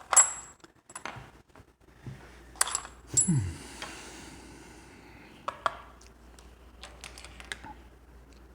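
Small metal parts of a Mul-T-Lock Junior lock clicking and clinking as they are handled, with a bright metallic ring just after the start and again near three seconds, then lighter scattered ticks.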